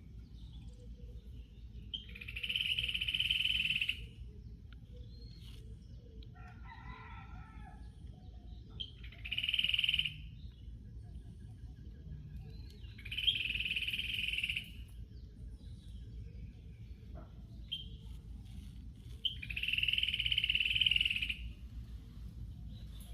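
A bird giving four loud calls, each lasting one to two seconds, several seconds apart, with a fainter, lower call between the first two.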